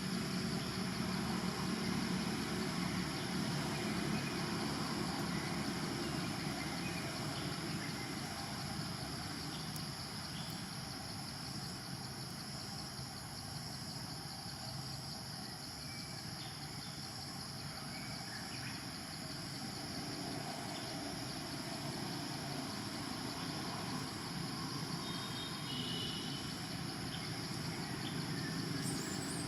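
Outdoor ambience: a steady, high insect drone over a low rumble, with a few faint bird chirps near the end.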